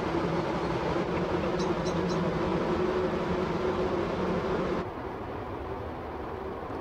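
Low, steady engine drone of a passing tanker, with a few held hum tones, and three short high chirps about a second and a half in. Near the end it cuts abruptly to a quieter, even rumble of another ship passing.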